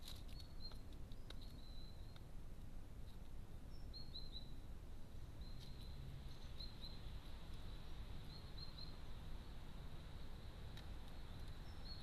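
Faint, short, high chirps of small birds in quick clusters of two to four notes over a low, steady background noise, with a few sharp clicks scattered through.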